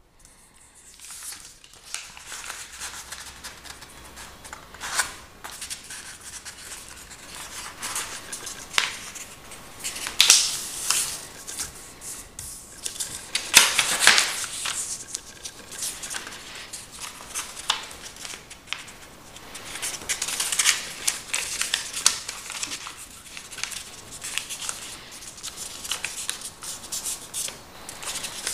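A sheet of lined notebook paper being handled and folded by hand: irregular rustling and crinkling with crisp swipes as folds are pressed into creases, loudest about halfway through.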